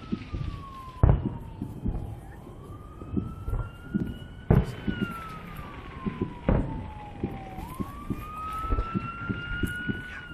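A wailing siren, its pitch slowly rising and falling over cycles of about five seconds, heard over fireworks going off. There are many sharp pops and several louder bangs, the loudest about a second in, then near four and a half and six and a half seconds.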